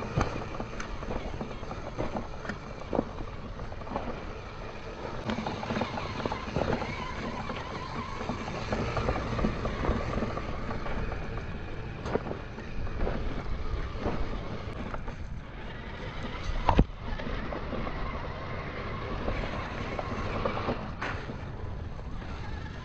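Small electric RC crawler's motor and gear whine with stones crunching and knocking under its tyres, slowed to half speed. There is one sharp knock about 17 seconds in.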